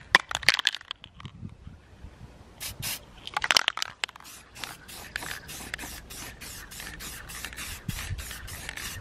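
Aerosol spray can of clear coat hissing as it sprays, first in a few separate blasts, then in a quick run of short bursts about three a second through the second half.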